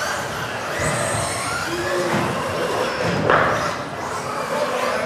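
Several 1:10 electric off-road RC buggies racing: their motors whine, rising and falling in pitch as they accelerate and brake, over the hiss of the tyres. A sharp knock a little past three seconds in is the loudest moment.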